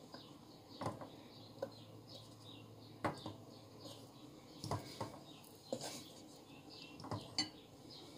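Light, scattered taps and clicks against an aluminium ring mold, about eight in all, as slices of palm heart are set into it by hand.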